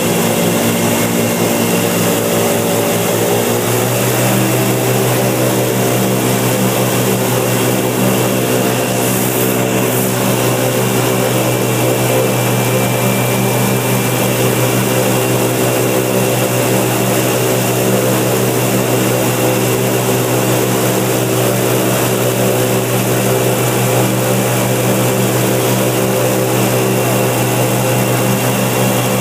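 Motor of an aluminium flat-bottom boat running steadily under way, its note shifting about four seconds in and then holding.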